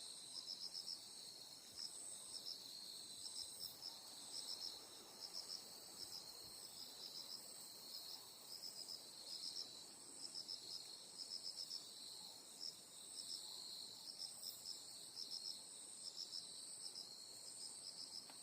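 Night insects chirping: a steady high trill with short pulsed chirps in quick groups of three or four, repeating throughout.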